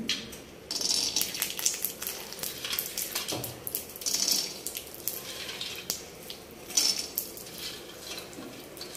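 Raw peanuts dropped by hand into a metal kadhai, clicking and rattling on the metal in several handfuls from about a second in, with a light sizzle as they land in the hot mustard oil.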